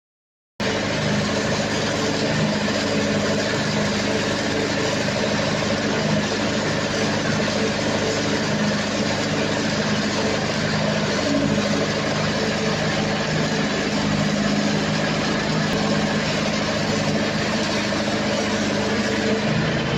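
Diesel engine of an engine-driven welder generator running at a steady speed. It cuts in abruptly about half a second in.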